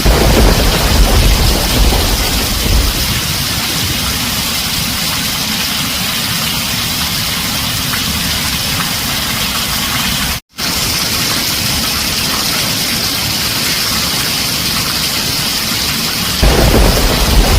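Heavy rain drumming on a tin roof as a steady hiss, with thunder rumbling low in the first few seconds and again near the end. The whole sound cuts out for an instant a little past halfway.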